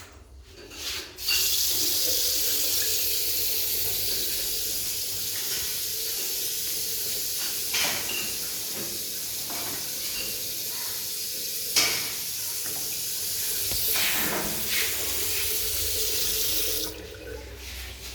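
Water running steadily from a tap into a basin, starting about a second in and shutting off near the end, with a few light knocks over the flow. This is the newly fitted tap and basin being run.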